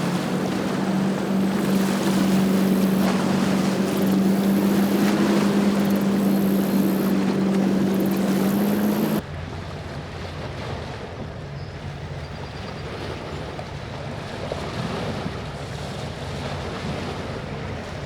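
Motorboat engine running at a steady, slightly rising pitch over wind and water noise. About nine seconds in, it cuts off abruptly to quieter wind and water with a fainter, lower engine hum.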